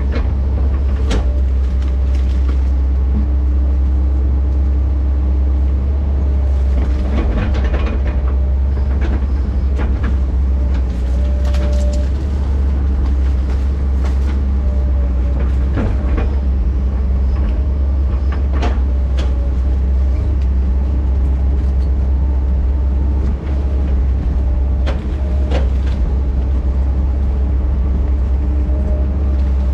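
Diesel engine of tracked heavy equipment (dozer or excavator) running steadily under work, with scattered metallic knocks and clanks from the machine.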